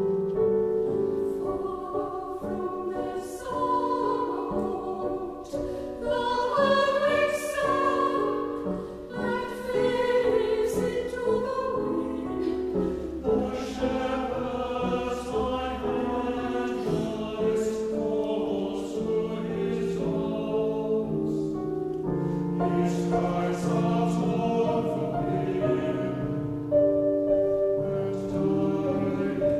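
Four-part mixed choir (soprano, alto, tenor, bass) singing a classical choral work with piano accompaniment, the voices moving in held, shifting chords.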